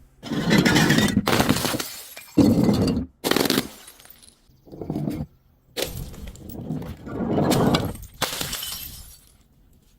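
Glass bottles breaking and crunching in a run of about six separate bursts, each starting suddenly and trailing off, with short gaps between them.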